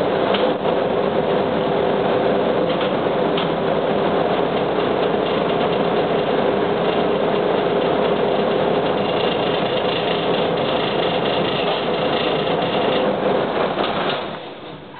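Cabin sound of a 1998 UD KC-UA460LSN diesel city bus: steady engine running with a hum, as the bus pulls up and stands. The engine sound falls away sharply near the end.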